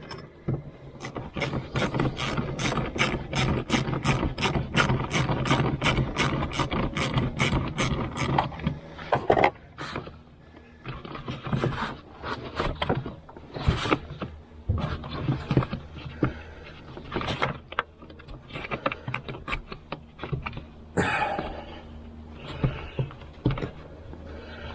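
Hand tools working on a plastic air intake tube and air box. A quick run of sharp clicks, about three a second, lasts roughly the first eight seconds, then gives way to scattered clicks and knocks.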